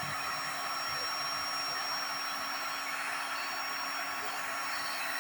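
Hot-air plastic welding gun blowing steadily while a weld on a plastic tank is being smoothed, with a thin steady high whine over the rush of air.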